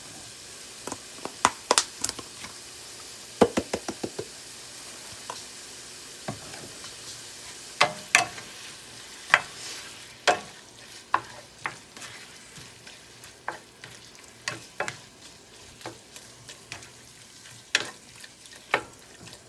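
Chicken and sliced onions sizzling in oil in a skillet, with a utensil clicking and scraping against the pan at irregular intervals as the food is stirred.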